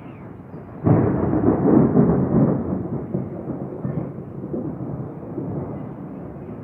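Thunder: a sudden clap about a second in, then a low rumble that slowly fades over several seconds.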